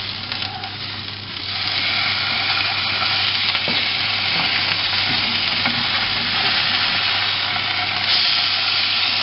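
Hake fillets sizzling in olive oil in a hot non-stick frying pan as they are flipped over. The sizzle gets louder about a second and a half in, and again near the end as a fillet lands flesh side down.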